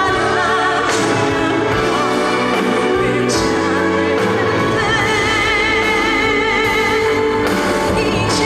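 A woman singing live over a loud band backing track, holding long notes with wide vibrato in the second half.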